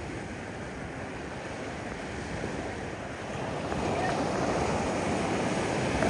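Ocean surf washing in and around rocks, the rush of water swelling louder a little past halfway through as a wave comes in.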